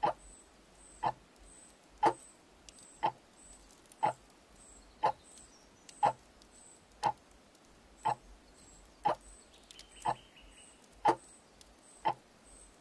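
Wall clock ticking, one short sharp tick each second as the second hand steps.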